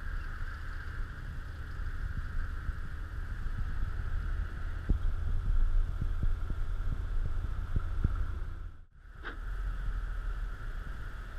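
Steady low rumble of road and engine noise inside a moving car's cabin, with a steady higher hiss over it. A run of soft knocks comes in the middle, and the sound cuts out for a moment about nine seconds in.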